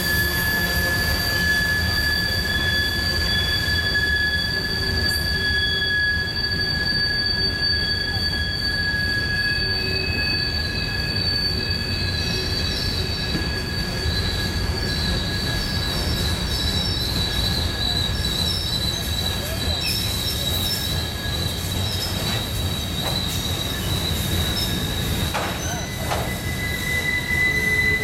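Freight cars (gondolas and covered hoppers) rolling through a tight curve, their steel wheel flanges squealing against the rail in steady high tones over the low rumble of the wheels. The squeal tones fade and shift as different cars pass, and a new one starts near the end.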